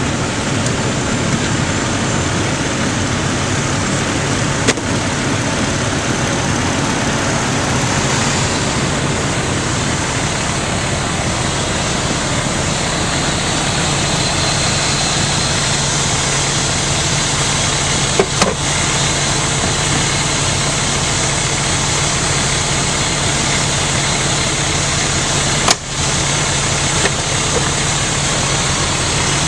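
Fire engine's engine running steadily, with a few brief sharp knocks of equipment being handled on the truck, the loudest near the end.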